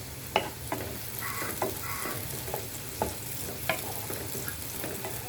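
Chopped garlic, herbs and chili sizzling in melted butter in a pan while being stirred, with a steady hiss and a few sharp clicks of the stirring utensil against the pan.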